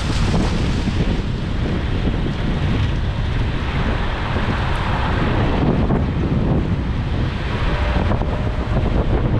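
Wind buffeting the camera's microphone: a loud, steady rushing noise, heaviest in the low rumble.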